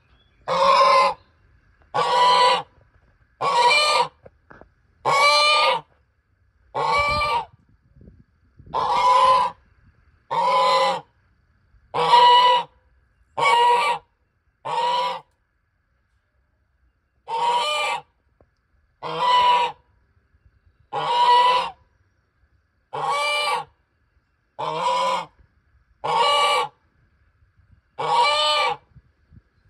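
A goose honking over and over, one honk about every second and a half, each under a second long, with a pause of about three seconds about halfway through.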